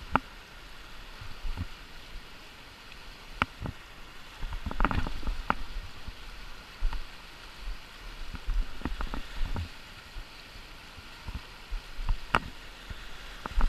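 River rapids rushing: a steady wash of white water over rocks, with a few sharp clicks and knocks scattered through it.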